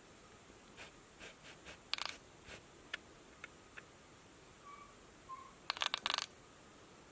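Light clicks and taps of a cat pawing and nosing at a laptop's screen and keys, a scattered few at first, then a quick run of louder clicks near the end. Two faint short chirps, from the bird video playing on the laptop, come just before that run.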